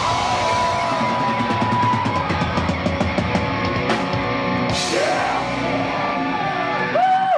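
Live heavy metal band playing loudly with distorted guitars and drums. A single tone is held for about the first two seconds, cymbal crashes come in the middle, and wavering bent notes sound near the end.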